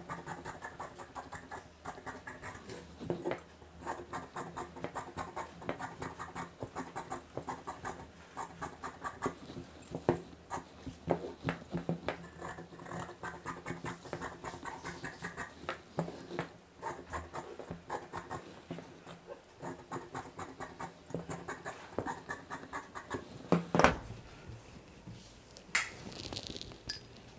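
Fabric scissors snipping through cotton cloth fused to buckram interfacing, trimming the excess from around neck facing pieces: a steady run of short, crisp snips, several a second, with one louder knock near the end.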